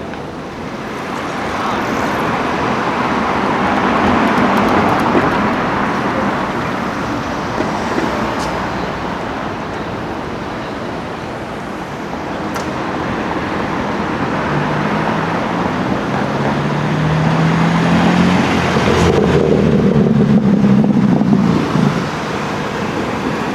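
Road traffic on a city street: car tyre and engine noise swells and fades as vehicles pass. In the second pass an engine note climbs as the car accelerates, from about fifteen seconds in, and the sound drops away shortly before the end.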